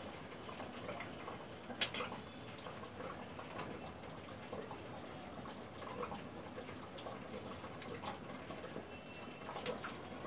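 Hands working a rolled-out sheet of dough on a stone rolling board, spreading flour over it and folding it: soft rubbing and light taps over a faint steady hiss, with one sharp click about two seconds in.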